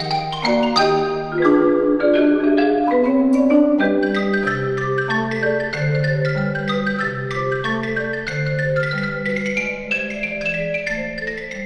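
Ragtime xylophone solo on a Yamaha xylophone: a fast run of short, bright struck notes over an accompaniment of three marimbas holding long, sustained low notes.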